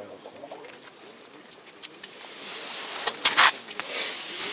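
Rustling and scraping of someone shifting about on the wet ice floor of a fishing tent, with a cluster of sharp clicks and knocks about three seconds in.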